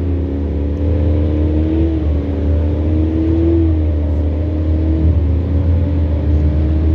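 Racing jet boat engine running hard and loud, its pitch dipping and climbing back several times as the throttle changes.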